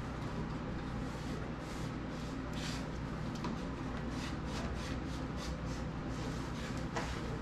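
Hands scuffing and pressing along a door jamb: a run of short, irregular rubbing strokes and one sharper tap near the end, over a steady low hum.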